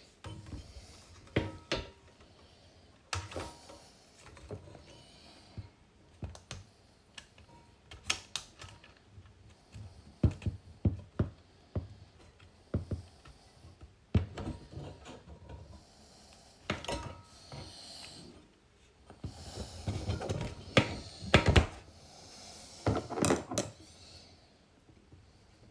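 Irregular clicks, taps and knocks of the display unit's plastic housing and small parts being handled and fitted back together, with a busier cluster of knocks in the last third.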